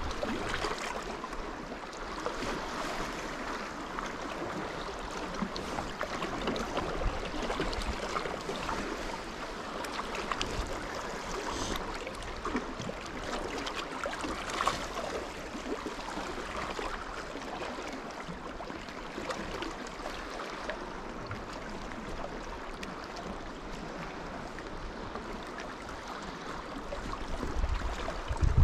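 Small lake waves lapping and washing against shoreline rocks, a steady wash with a few small splashes.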